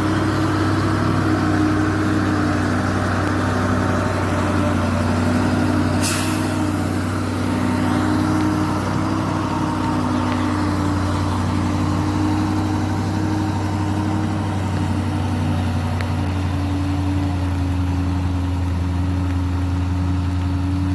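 Diesel engine of a loaded Mitsubishi Fuso dump truck pulling at a steady low speed as the truck drives past, with the engine note holding an even pitch. A brief hiss sounds about six seconds in.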